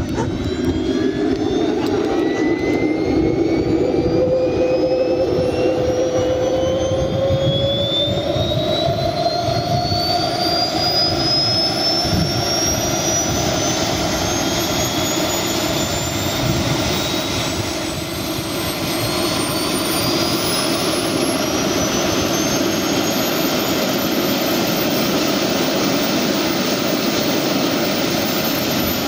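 Twin model gas turbines of a large RC English Electric Lightning running on the ground, a steady jet rush with a high turbine whine that climbs slowly in pitch as the engines spool up after starting.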